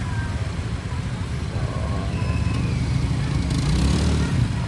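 Steady vehicle noise on the move: a dense low rumble with a hiss over it, and a faint voice now and then.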